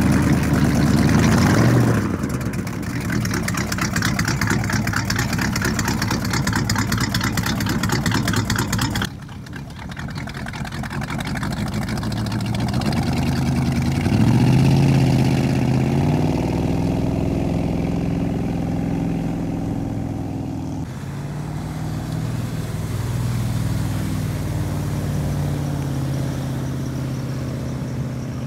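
1958 Century Resorter wooden runabout's inboard engine running under way: a rapid pulsing exhaust beat close up, then the engine pitch rising about halfway through as the boat speeds up, levelling off to a steady run at speed.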